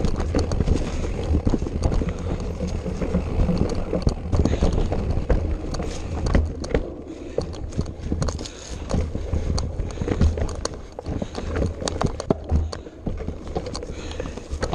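Irregular knocks and rattles over a dense low rumble: the jolting of a ride over rough, rocky ground.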